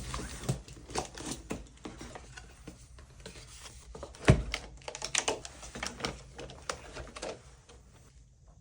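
Irregular clacking of keys on an AULA F99 mechanical keyboard being typed on, with one loud knock about four seconds in.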